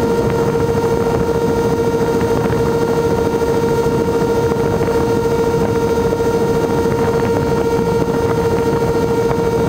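Propeller motors of an RC blimp, heard through its onboard camera, running at a constant speed with a steady whine of one unchanging pitch over a rushing noise.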